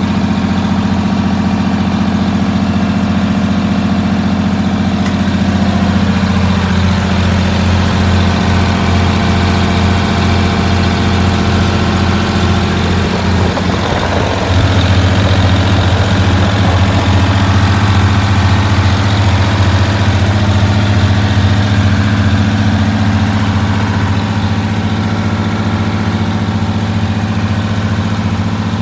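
Detroit Diesel engine of a GMC bus idling steadily, heard close up at the open engine compartment. It grows a little louder about halfway through.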